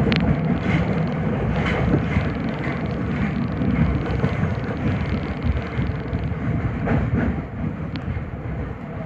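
Nagoya subway Higashiyama Line 5050 series train running, with a steady rumble of wheels on rail heard from inside the car. It gradually gets quieter over the last few seconds.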